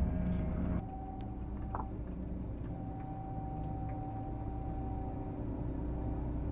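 John Deere combine harvester's engine running steadily on the road, heard from inside the cab: a low drone with a thin, steady whine above it. The level drops suddenly about a second in, then the drone carries on.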